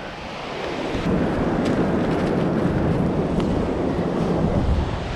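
Wind noise on the microphone, a steady low rushing, with surf from the shore mixed in; it swells about a second in and stays steady.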